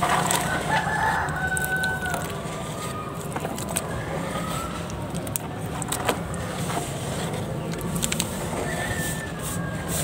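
A rooster crowing in the background, a drawn-out call in the first couple of seconds and another near the end, over wet squelching and sloshing of a hand kneading black mud slurry in a plastic tub.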